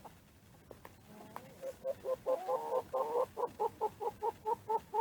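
Hen clucking: a quick, even run of short clucks, about four or five a second, that begins about a second and a half in and carries on.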